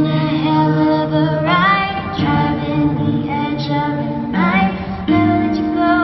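Female voice singing a pop song over guitar accompaniment, with new chords struck every second or so.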